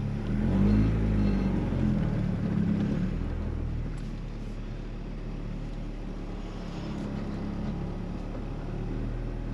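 G23BK four-cylinder engine moving the car at low speed. The revs rise and fall briefly in the first few seconds, then it settles to a steady low run near idle.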